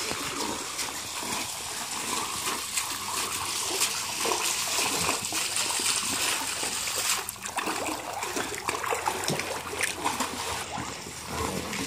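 Water spraying and splashing: a garden hose running in a dog's mouth as she wades and plays in shallow pool water. The spraying hiss eases about seven seconds in.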